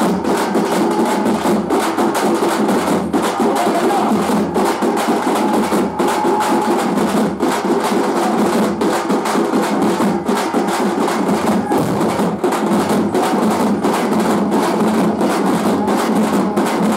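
A troupe of drummers beating large double-headed drums with sticks, the strokes dense and fast in a loud, unbroken rhythm.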